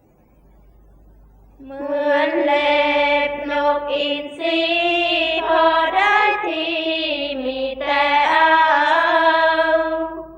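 Thai sorapanya chant sung in the Isan melody: voices chanting one long drawn-out melodic line, with held notes that step up and down in pitch. It begins about two seconds in.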